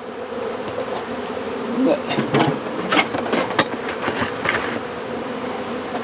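Honeybees buzzing around the hive in a steady hum, with several sharp clicks and knocks from hands working on the wooden hive boxes.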